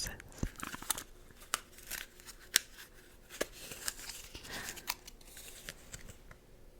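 Makeup packaging being handled close to the microphone during an unboxing: an irregular run of sharp clicks, taps and crackles, the loudest about two and a half seconds in, growing sparser toward the end.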